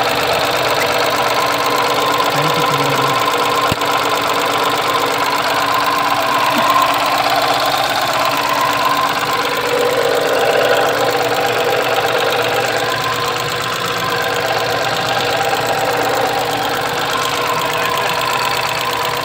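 Newly installed Tata Ace Gold BS6 engine running at a steady idle.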